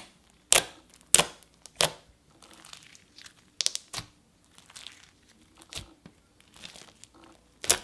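Hands pressing and kneading a light blue cream cheese slime with foam beads: sharp clicks and pops as air pockets in the slime are squeezed, with a faint crunchy crackle from the foam beads. Several loud clicks come about half a second apart at first, then more scattered ones.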